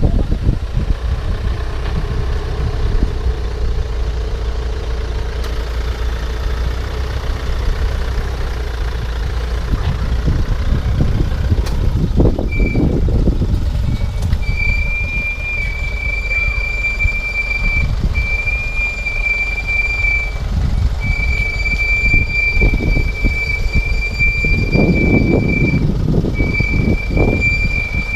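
A vehicle engine running with a steady low rumble. About halfway through, a high steady squeal joins it and holds in long stretches, broken by short gaps.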